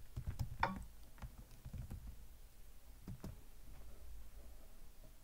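Computer keyboard typing: scattered, irregular key clicks as a short command is typed, over a faint steady low hum.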